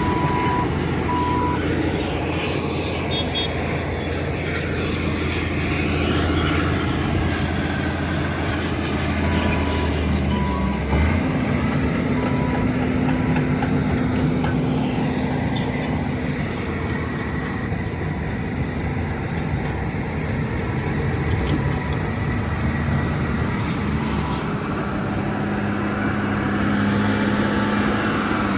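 Heavy diesel earthmoving machines working: engines running under load, their pitch shifting as the machines work, with a reversing alarm beeping in short runs near the start and again partway through.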